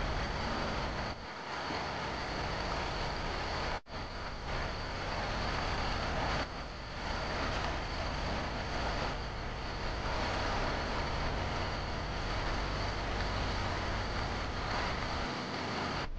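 Steady rushing noise with a brief sharp dropout about four seconds in.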